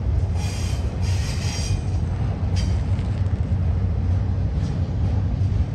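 BNSF double-stack freight trains climbing the Cajon grade, their diesel locomotives giving a steady deep rumble under load. Twice in the first two seconds a short high-pitched ringing squeal of steel wheels on rail rises above it.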